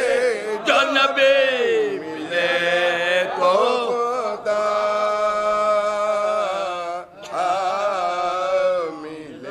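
Men's voices singing an Urdu mourning elegy for Husain without instruments: a lead voice with others singing along, holding long, wavering notes. There is a short break about seven seconds in.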